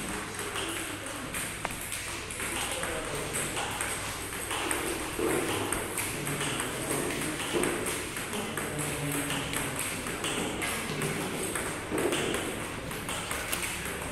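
Table tennis balls being hit in a multi-ball drill: a steady run of sharp clicks as a paddle strikes each ball and the ball bounces on the table.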